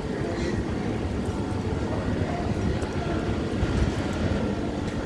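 Steady low rumble of outdoor background noise, dense in the low end, with no clear single event standing out.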